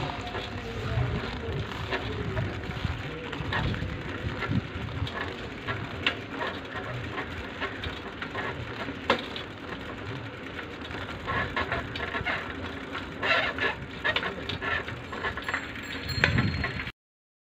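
Wind rumbling on the microphone and road noise from a moving two-wheeler, with scattered clicks and rattles. The sound cuts out suddenly just before the end.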